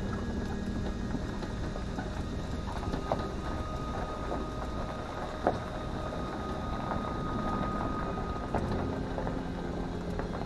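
Vehicle driving over a rough unpaved road: a steady low rumble of tyres with rattling and about three sharp knocks from bumps.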